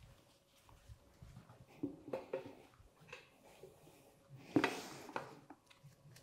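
Hand tools being handled on a motorcycle tire changer: a few light clicks and knocks, then a louder clatter about four and a half seconds in.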